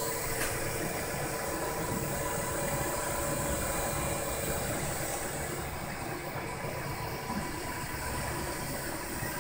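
Dual-extruder 3D printer running while printing an ABS part: a steady mechanical whir with a few held tones, whose pattern shifts a little over halfway through.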